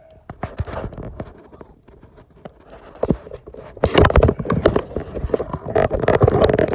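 Handling noise from a phone being set into a holder: irregular knocks, bumps and rubbing right on the microphone, growing louder and busier about four seconds in.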